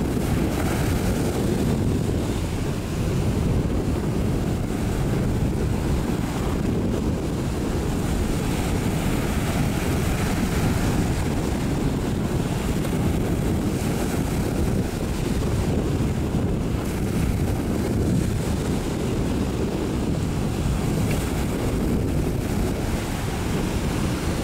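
Wind rumbling on the microphone over the steady wash of sea waves.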